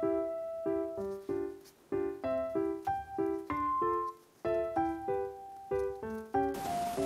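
Background music: a light piano-like keyboard melody of short, separate notes. A soft hiss joins in near the end.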